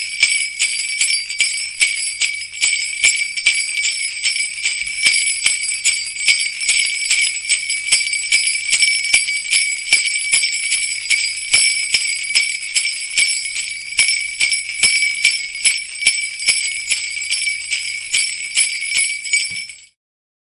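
Sleigh bells jingling continuously in a fast, uneven shake, then stopping abruptly near the end.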